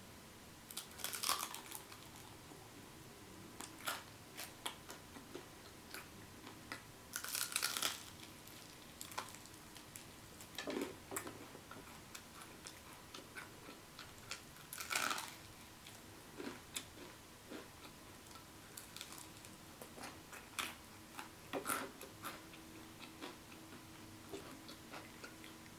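Close-up chewing and crunching of spicy Korean fried chicken: irregular crisp bites and chews, with louder crunches at about 7 and 15 seconds in.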